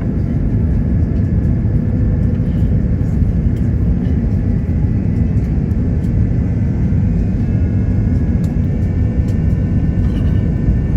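Steady cabin rumble of an Airbus A330-900neo airliner in flight, from its Rolls-Royce Trent 7000 engines and airflow, with faint steady whines above the low roar.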